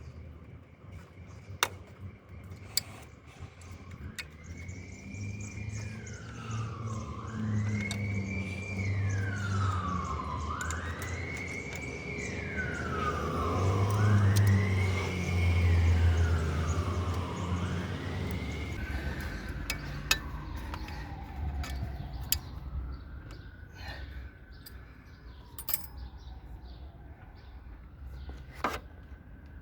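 Emergency vehicle siren wailing, its pitch rising and falling about every two seconds over a low traffic rumble, then sweeping more slowly and fading in the last third. A few sharp clicks are heard along with it.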